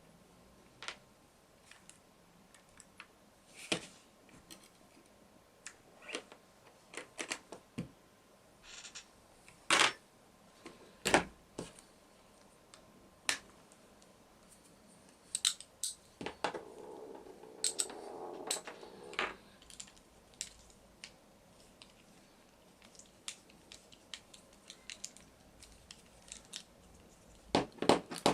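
Irregular clicks and light knocks of small plastic and metal RC car parts and hand tools being handled on a workbench, with a few seconds of softer rubbing just past the middle.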